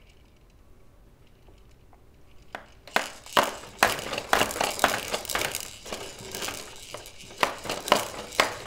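Quiet for about two and a half seconds, then irregular sharp plastic clacks and rattles, two or three a second, as a baby bounces in an activity jumper and bangs on its toy tray.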